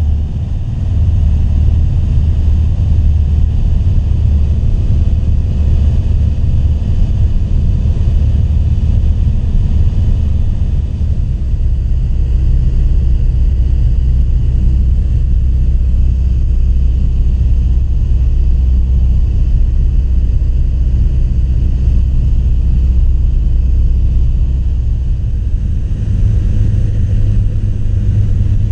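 Piper Archer's four-cylinder Lycoming engine and propeller droning steadily in flight, heard inside the cockpit. The pitch of the drone shifts slightly near the end.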